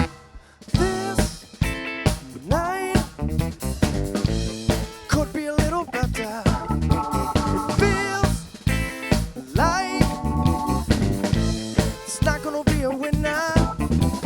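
Instrumental band music with a drum kit keeping a steady beat under a wavering, bending lead melody. The music drops out briefly right at the start, then comes back in.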